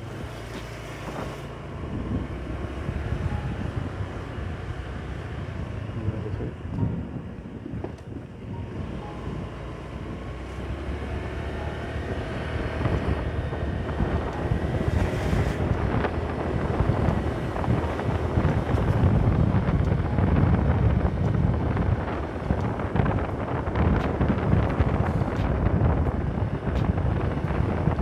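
Wind buffeting the microphone on a moving scooter, a steady low rumble that grows louder about a third of the way in.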